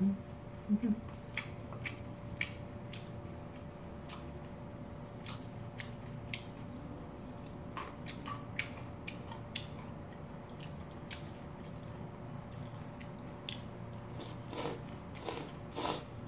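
Eating sounds of cold noodle soup: scattered small wet clicks of chewing and chopsticks in a glass bowl, then noodles slurped in several short pulls near the end.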